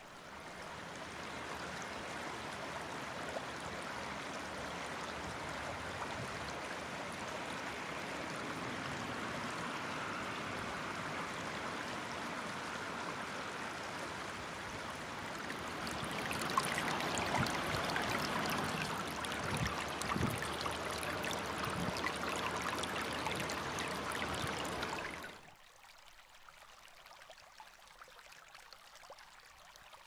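A shallow stream babbling over rocks as a steady rush of water. It grows louder about halfway through and cuts off suddenly near the end.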